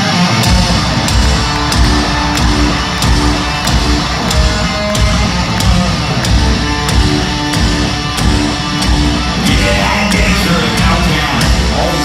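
Loud hard rock music with electric guitars and a steady, driving drum beat.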